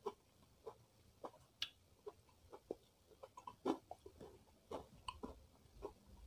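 Close-miked eating: a person chewing food, heard as an irregular run of short, sharp crunches and mouth clicks.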